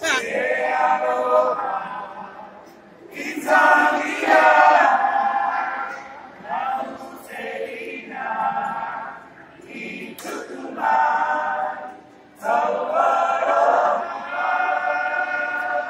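A group of boys singing together unaccompanied, in several sung phrases with short pauses for breath between them.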